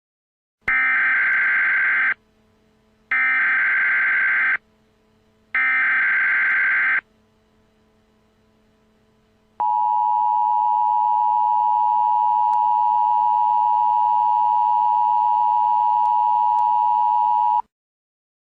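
Emergency Alert System tones: three short bursts of warbling data tones (the SAME header), each about a second and a half long, followed by the steady two-tone attention signal held for about eight seconds before it cuts off.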